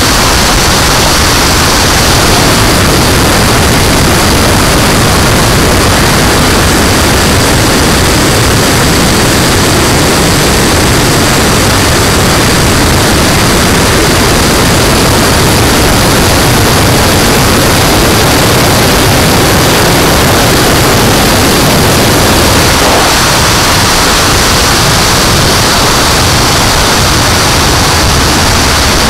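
RC model turbine jet in high-speed flight, heard from on board: a loud, steady rush of wind over the airframe mixed with the turbine's high whine.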